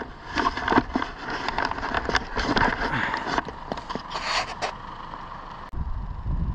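Wood and brush cracking and scraping in a quick, irregular run of snaps and crackles. It stops abruptly about five and a half seconds in, and a low rumble takes over.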